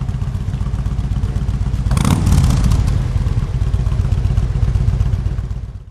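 Harley-Davidson V-twin motorcycle engine idling with a low, pulsing beat, revved briefly about two seconds in.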